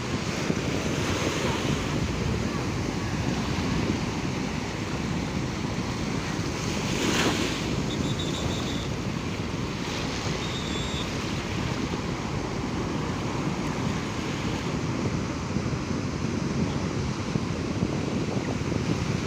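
Sea waves washing onto the shore with wind buffeting the microphone, a steady rushing noise with a brief louder surge about seven seconds in.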